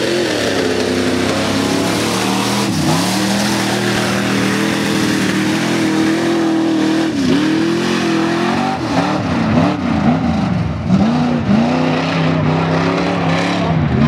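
Off-road race truck engine running hard at high revs. From about seven seconds in it revs up and down again and again as the throttle is worked on the dirt course, the engine of a caged Ford Bronco.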